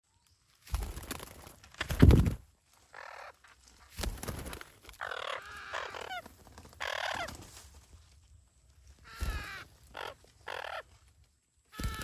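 Parakeets calling at a tree-hole nest: a series of short pitched squawks that bend up and down. Loud brief flutters or thumps come between them, the loudest about two seconds in and another near the end as a bird flaps its wings.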